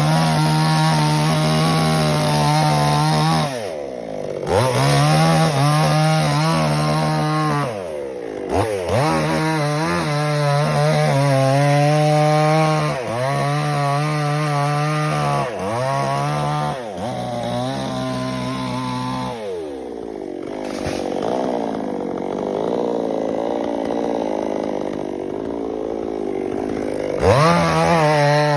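Two-stroke chainsaw cutting coconut palm wood, run at high revs. Its note sags and climbs back several times, and for a longer stretch from about two-thirds of the way in it runs lower and rougher before revving up again near the end.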